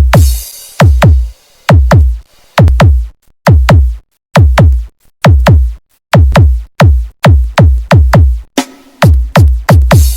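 Loud electronic 'sound check' DJ remix made of booming drum-machine kicks, each sweeping steeply down in pitch into a deep bass. The kicks come in quick pairs and threes separated by short near-silent gaps.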